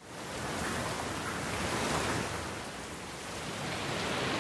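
Rain falling, an even hiss that fades in at the start and swells and eases gently in level.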